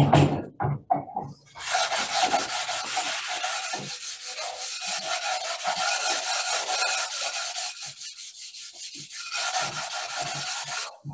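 A few handling knocks, then about a second and a half in a continuous scraping begins: the edge of an oar blade being sanded and bevelled.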